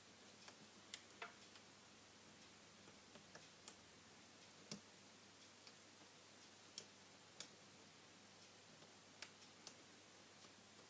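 Faint, irregular small clicks and ticks, about a dozen scattered across the stretch, against near silence: small parts and tools being handled while a smartphone is taken apart for a screen replacement.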